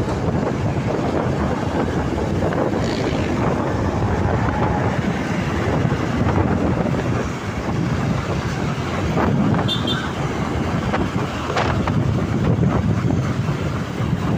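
Steady rumble of road vehicles, with wind buffeting the microphone and a few brief knocks about two-thirds of the way in.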